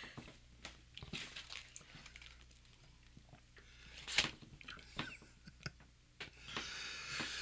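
Quiet eating sounds: an ice cream bar being bitten and chewed, with small crinkles and clicks of its foil wrapper. Near the end comes a hiss of breath drawn in against a mouth burning from habanero pepper.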